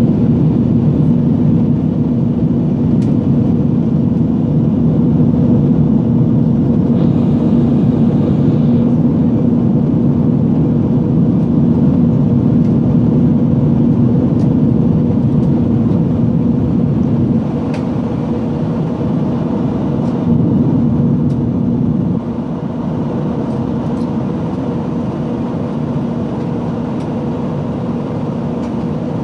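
Airbus A320 cabin noise in flight, heard from a passenger seat: a steady rush of air with a steady engine hum beneath it. The noise drops slightly in level about two-thirds of the way through.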